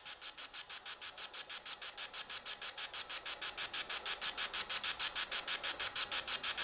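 Spirit box (necrophonic app) scanning through radio frequencies: a rapid, even pulsing of static, about eight pulses a second, growing slightly louder.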